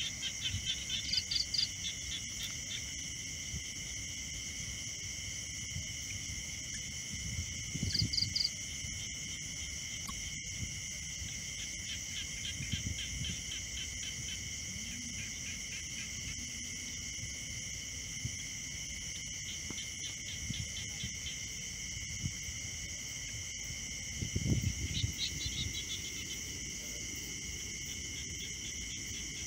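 Steady chirring of crickets, with short bursts of rapid chirping now and then. A few brief low noises stand out, the loudest about two-thirds of the way through.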